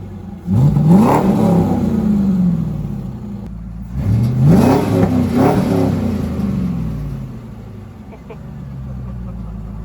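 2004 Corvette's LS1 V8 being revved in the driveway: a sharp blip about half a second in and a double blip about four seconds in, each falling back to a steady idle. The engine is running again on a newly replaced fuel pump.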